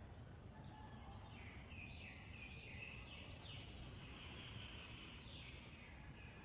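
Faint birds chirping over a low, steady background rumble, the chirps starting about a second and a half in and fading out near the end.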